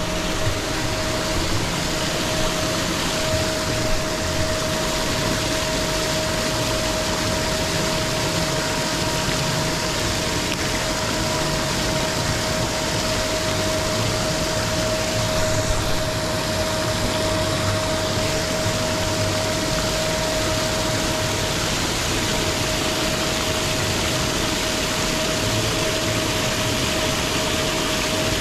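Paddlewheel pond aerators running, their paddles churning the water into a steady splashing over a constant motor hum.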